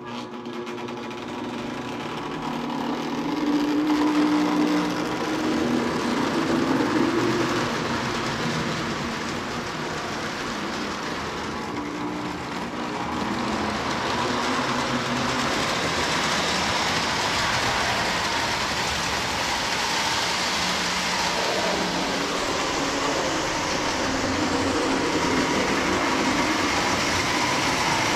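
Lionel O-gauge Alco diesel toy train running on track, its motor and wheels making a steady whirring rumble that grows louder a few seconds in.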